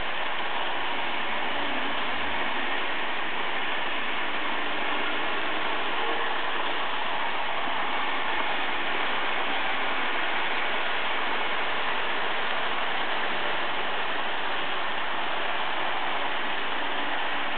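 Märklin H0 model trains running on the layout: a steady whirring rattle of small electric motors and wheels on the track.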